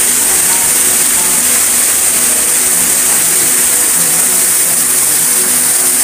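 Waterfall pouring over a cave mouth: a steady, loud rush of falling water.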